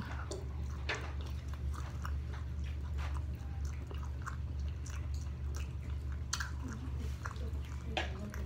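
A person chewing and biting into sauce-covered fried chicken wings, with scattered short mouth clicks and smacks, over a steady low hum.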